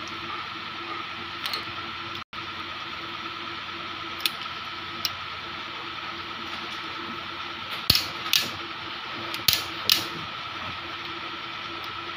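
Click-type torque wrench tightening cylinder head bolts on an aluminium cylinder head. It gives a scatter of sharp metallic clicks, a few light ones early and two louder pairs around eight and nine and a half seconds in, over a steady background hum.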